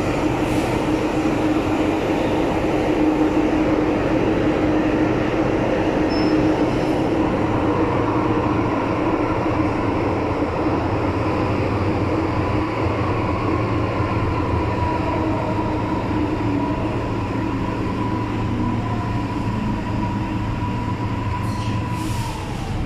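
MTR Island Line M-Train running through a tunnel, heard from inside the car: a steady rumble of wheels on rail with a thin whine above it. The whine drops in pitch near the end as the train slows.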